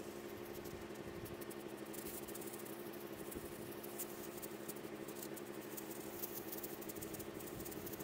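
Compressed air hissing from a hand blow gun in short on-off bursts over a steady low hum.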